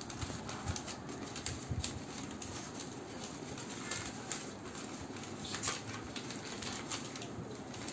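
Newspaper rustling and crinkling as it is folded, tucked in and pressed flat by hand, with a few sharper crackles scattered through.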